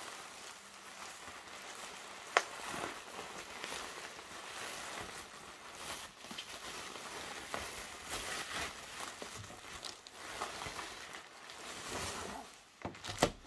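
Bubble wrap rustling and crinkling as it is pulled off a box by hand, with scattered small crackles and a sharp click a little over two seconds in.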